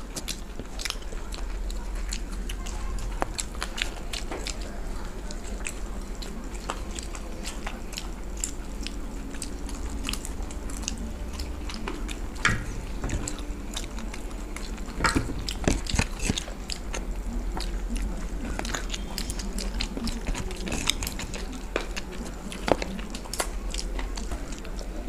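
Two people chewing and biting fried chicken and egg chowmein close to a table microphone, with many short, sharp mouth and finger clicks and a few louder knocks near the middle and end.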